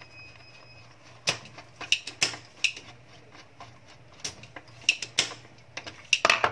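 Screwdriver and wire ends clicking and tapping against the metal screw terminals of a UPS/inverter as wires are fastened in. The sharp clicks come irregularly, with a quick cluster near the end, over a low steady hum.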